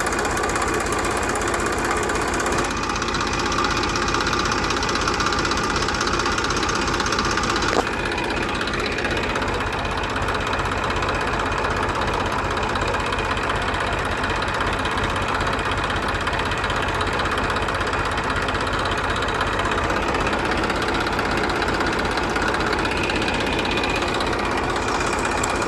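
Small engine running steadily with a fast, even chugging pulse. The sound shifts abruptly about three seconds in and again about eight seconds in.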